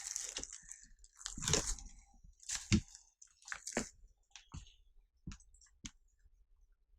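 Footsteps crunching over debris and rubble: a string of irregular short crunches and knocks that thin out after about five seconds.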